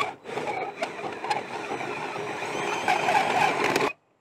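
Cordless drill spinning a very dull 2-inch hole saw as it grinds its way into the boat deck. The sound stops abruptly just before the end.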